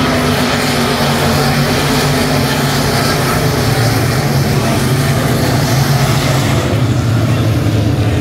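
USRA B-Modified dirt-track race cars' V8 engines running together in a loud, steady drone, several engine notes overlapping.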